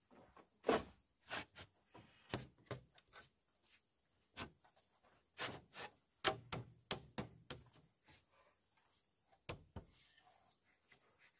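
A string of irregular knocks and taps, roughly two a second, some with a dull low thump, stopping near the end.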